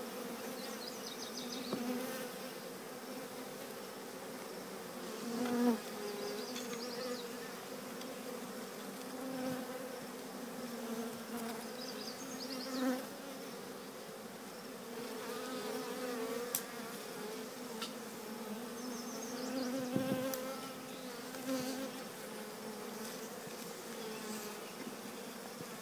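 A swarm of honeybees buzzing: a steady, dense hum from the mass of bees. It swells louder a few times as single bees fly close past.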